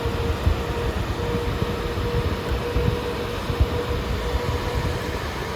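EVGA RTX 3060 Ti FTW3 Ultra's triple-fan cooler running at 100% fan speed, quite loud: a steady rush of air with a steady hum tone. Air from the fans hits the close-up microphone, adding an irregular low rumble of wind noise.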